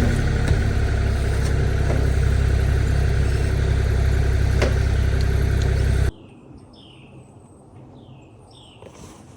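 Kubota KX040 mini excavator's diesel engine running with a deep rumble and a clank, then stopping abruptly about six seconds in. Birds chirp in the quiet after it.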